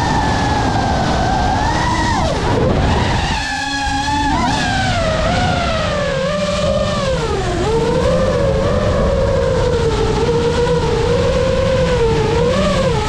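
FPV quadcopter's motors and propellers whining, the pitch swinging up and down with the throttle and dropping steeply twice, about two and a half seconds in and again near eight seconds, over a steady low rush of air.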